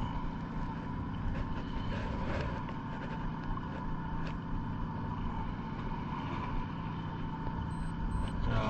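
Fishing boat's engine running steadily: an even low drone with a faint higher hum.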